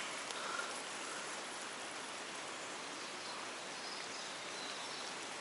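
Steady wash of a shallow stream's running water, an even hiss with no distinct events.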